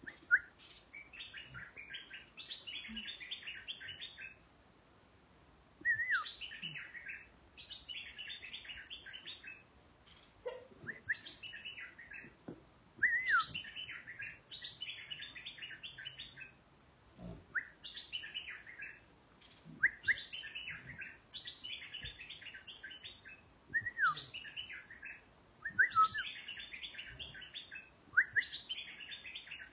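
A caged merbah lekir, a bulbul, singing over and over: each phrase opens with a clear rising-then-falling whistle and runs into a quick, chattering string of notes, with short pauses between phrases.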